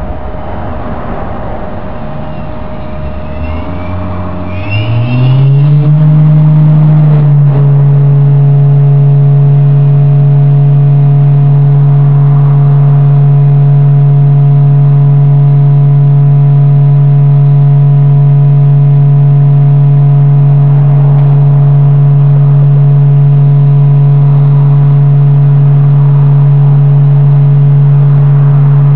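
HSD ES 721 M electro spindle on a post-repair test run. The motor starts about three seconds in and rises in pitch as it runs up to speed, then settles at a loud, steady hum that holds to the end.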